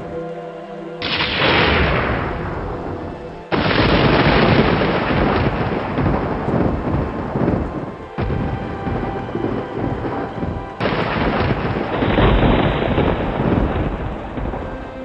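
Thunder in a rainstorm: sudden claps about a second in, at about three and a half seconds and near eleven seconds, each trailing off into a long rolling rumble, with rain beneath.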